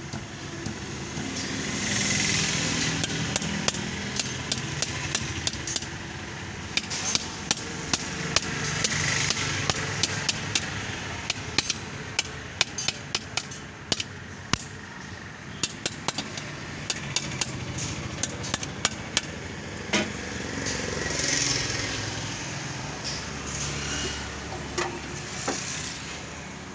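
Irregular sharp metallic clicks and taps of pliers and hand tools working the metal clamps and bolts of a Swaraj tractor's air cleaner canister, come in quick runs. They sit over a rushing noise that swells and fades a few times.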